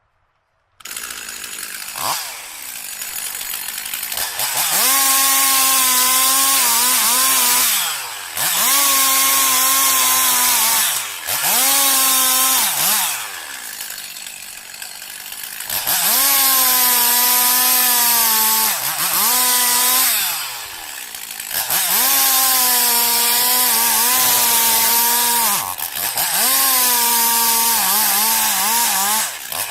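Chainsaw revved to full throttle in repeated bursts of two to four seconds, about eight times, its pitch wavering as it bites into wood and dropping back to a lower run between cuts. It starts after a moment of silence.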